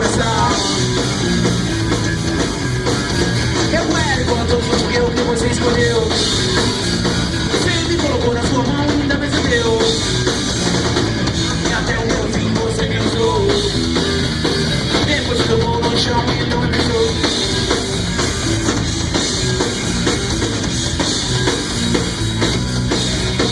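Loud live rock music from a band of electric guitar, bass guitar and drum kit, playing a fast, driving song.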